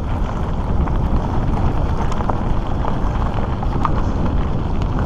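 Mountain bike rolling over a rough gravel dirt trail, with wind buffeting the bike-borne camera's microphone and many scattered ticks and rattles from stones and the bike.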